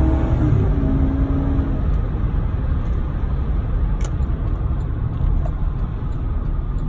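2010 Chevy Avalanche heard from inside the cabin while driving: the engine's drone fades over the first two seconds, then a steady road and tyre rumble as the truck rolls on. A light click about four seconds in.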